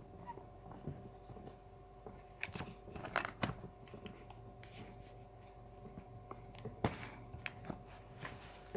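Hands handling a phone and its mounting straps: scattered small clicks, rustles and scrapes, with one short sharp crackling noise about seven seconds in, over a faint steady electronic hum.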